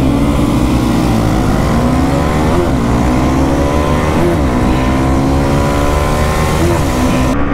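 Motorcycle engine at full throttle in a drag race, heard from on the bike: revs climb steadily and drop sharply at each upshift, three times about two seconds apart, over a steady rushing noise.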